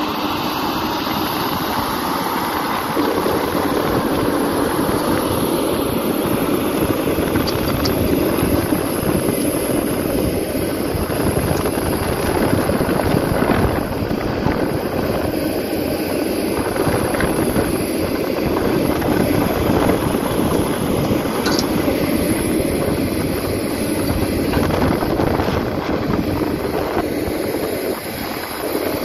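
Caterpillar hydraulic excavator's diesel engine running under load as the bucket digs into sandy soil; it gets louder about three seconds in and then holds steady.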